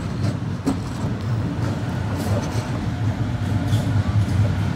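Double-deck electric suburban train passing close by on the junction tracks: a steady low rumble of wheels and traction equipment, growing slightly louder, with scattered sharp clicks of the wheels over rail joints.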